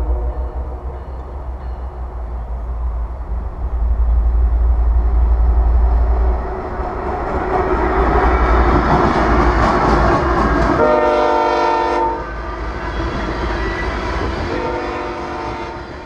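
Diesel-hauled freight train passing close by: the locomotives' deep rumble and the noise of wheels on rail build to a peak as the engines go by. About eleven seconds in the train horn sounds in a blast of about a second, then sounds again near the end as the hopper cars roll past.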